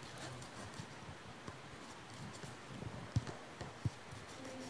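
Scissors snipping through a sheet of craft foam glued onto cardboard, trimming around its edge: faint cuts and small clicks, two sharper snips about three and four seconds in.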